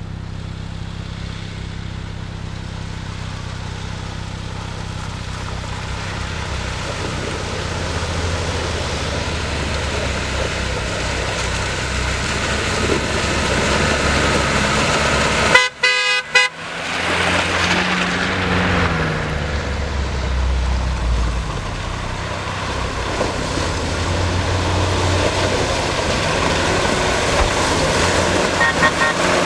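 Lada Niva 4x4 engines running and revving as the vehicles crawl through a deep muddy, iced-over rut. About halfway a car horn gives a quick series of short toots, with a fainter toot near the end.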